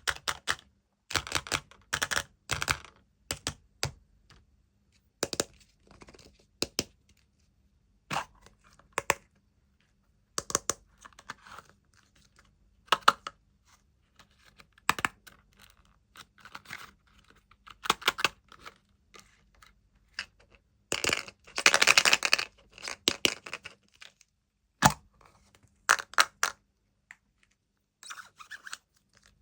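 Wrapping being crinkled and torn in short, scattered bursts with small clicks between them, and a longer stretch of crinkling about two-thirds of the way through.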